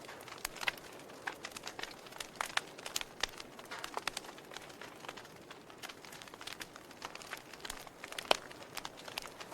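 Wood fire crackling in a fireplace: irregular snaps and pops over a soft steady hiss, with the sharpest pop near the end.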